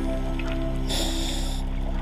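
Background music with long held notes and a brief bright shimmer about halfway through.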